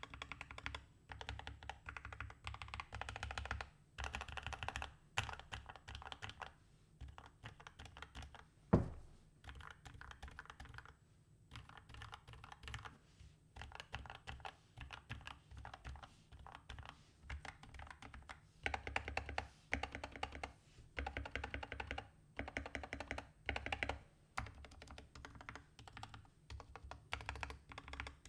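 Typing on a GK61XS 60% mechanical keyboard with lubed, filmed Gateron Milky Yellow linear switches, foam- and tape-modded, resting on a desk mat. It gives runs of muted keystroke clacks in bursts with short pauses between, and one much louder thump about nine seconds in.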